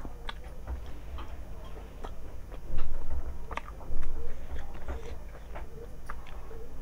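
Close-up eating sounds: fingers mixing rice and chicken curry on a plate and wet chewing, heard as a run of small clicks. Two dull thumps about three and four seconds in.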